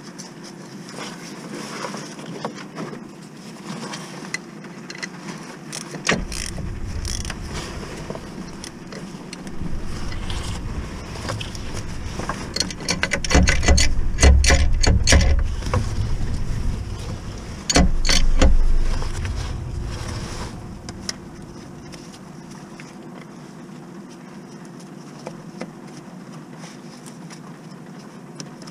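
Hand-tool work on a car gearbox: scattered metallic clicks and knocks, with a quick run of clicks around the middle. A low rumble comes and goes through the middle stretch.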